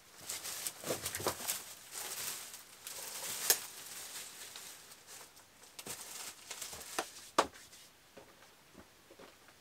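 Dry, leafy dead branches rustling and crackling as they are gathered and carried, with a few sharp snaps: one about three and a half seconds in and two around seven seconds. After that only light scattered ticks.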